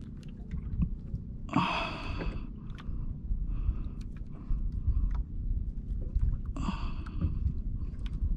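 An angler breathes out hard twice while cranking a conventional jigging reel against a fish, with weaker breaths in between. Underneath is a steady low rumble and scattered small clicks.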